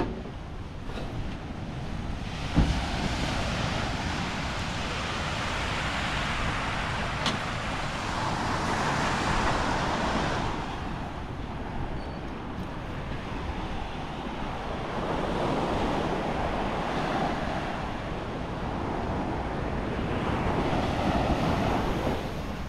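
Small waves washing onto a sandy beach, the surf swelling and fading every few seconds, with wind buffeting the microphone. A single brief knock about two and a half seconds in.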